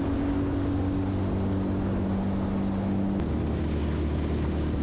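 Outboard motor of a small aluminium boat running steadily under way, a constant hum whose tone shifts abruptly about three seconds in.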